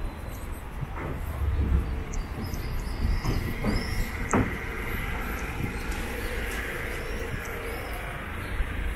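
Street noise: a low rumble of passing vehicles with a few sharp knocks and clatters.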